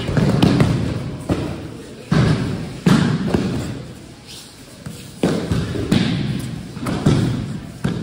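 Bodies thudding onto tatami mats as aikido partners are thrown and take breakfalls, several heavy thuds at irregular intervals, with voices in a large hall.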